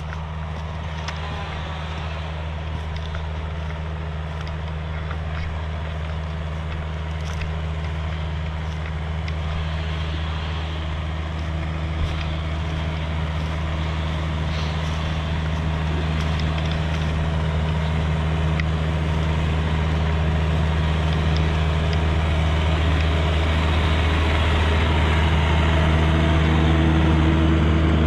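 Kubota excavator's diesel engine running steadily, growing gradually louder.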